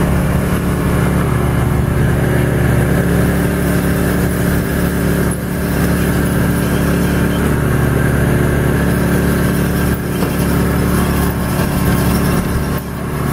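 A generator and a Sunnen cylinder-honing machine running steadily, the hone's mandrel turning inside a Harley-Davidson JD motorcycle cylinder that is worked back and forth along it by hand.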